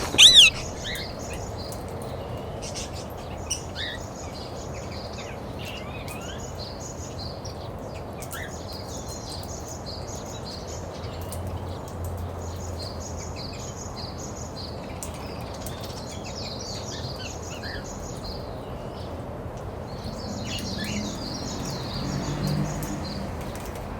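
Many small aviary birds chirping together, a busy stream of short high calls, with one loud call right at the start over a steady background hiss.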